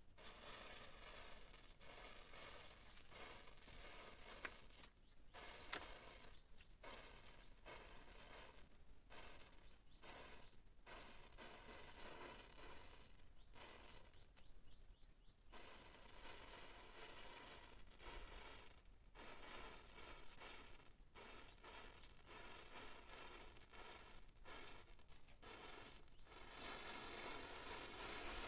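A chain of matchsticks burning, the match heads catching one after another with a crackling fizz that comes in uneven spurts with brief drop-outs. It gets louder near the end as the flame reaches the matches at the junction.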